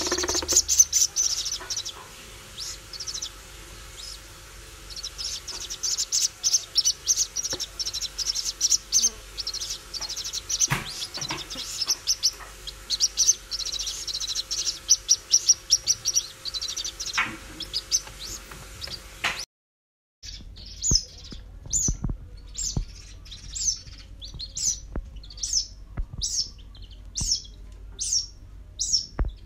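White-breasted waterhen (ruak-ruak) chicks peeping: a dense run of high-pitched chirps, then, after a brief break, single chirps repeated evenly, about one and a half a second.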